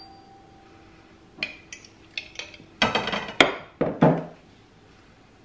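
Metal spoon clinking against a glass jar and ceramic plates while pickled vegetables are spooned out. A few light clinks come from about a second and a half in, then a louder run of ringing clinks near three to four seconds.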